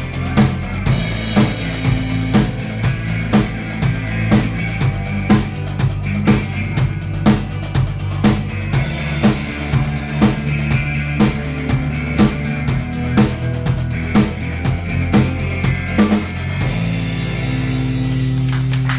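Instrumental ending of a rock song: a drum kit keeps a steady beat under sustained bass and chords, then the drums stop about 17 seconds in and a final chord is held.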